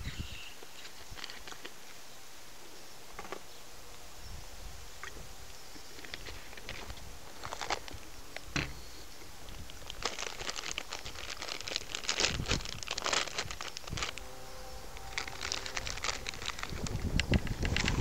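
Irregular crunching and crackling, sparse at first and growing denser and louder in the second half.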